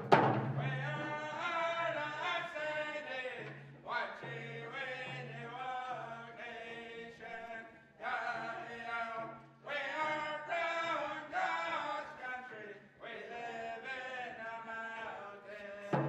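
Closing music of chanted singing by male voices in phrases of a few seconds with short breaks between them, over a low held note.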